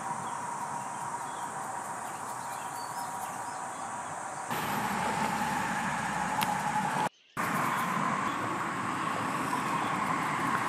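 Steady outdoor background noise with a faint held tone. It changes abruptly at edit cuts and drops out to near silence briefly about seven seconds in.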